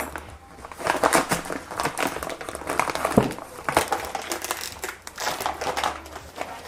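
Stiff plastic parts packaging crinkling and crackling as it is handled and forced open by hand.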